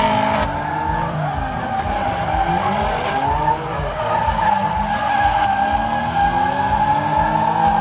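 Two drift cars sliding in tandem, their engines held high in the revs and rising and falling in pitch, over continuous tire squeal from the sliding tyres.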